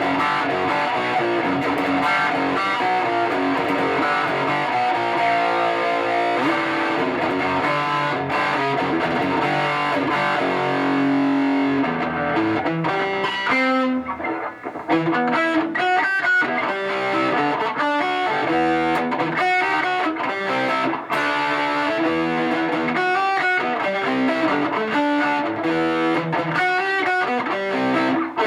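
Electric guitar played through a Fender Twin Reverb tube amplifier, a steady run of notes and chords with a short break about halfway through; the amp is working again after flood damage.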